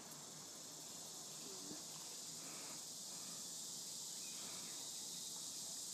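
Steady high-pitched insect chorus, swelling a little as it goes, with faint voices far off in the background.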